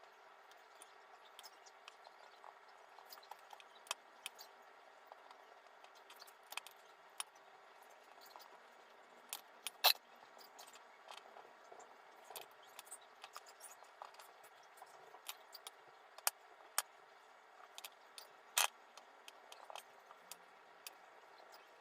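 Faint, irregular light clicks and taps from handling biscuits, a plate and utensils while assembling and decorating, over a quiet steady room hum; the sharpest clicks come about halfway through and again a few seconds before the end.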